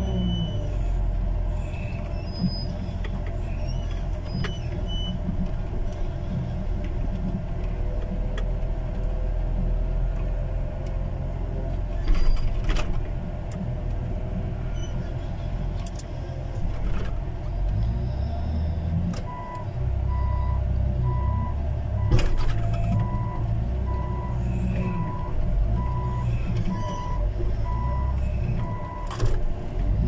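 Heavy earthmoving machine's engine running steadily, heard from inside its cab, with a couple of loud knocks from the machine at work. A little past the middle a reversing alarm starts, beeping steadily about four times every three seconds while the machine backs up.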